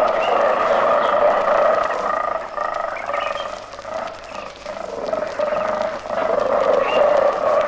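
Dense, continuous chorus of animal calls, many voices overlapping into a steady drone. It dips briefly around four seconds in, then swells again.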